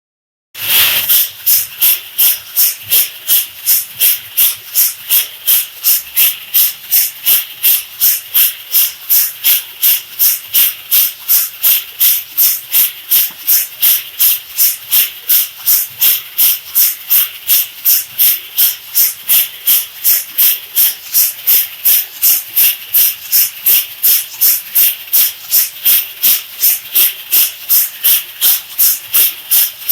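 Coffee beans swishing and rattling as they tumble in the rotating drum of a traditional 50 kg wood-fired roaster. The sound comes as even, hissy pulses, about two and a half a second.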